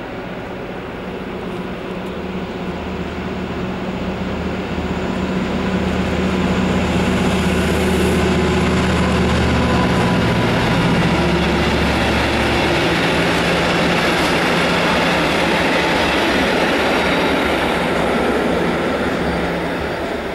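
Freight train of open box wagons hauled by a locomotive passing along the tracks. A steady low drone rides over the rumble of wheels on rail, building over the first few seconds, holding, then fading near the end.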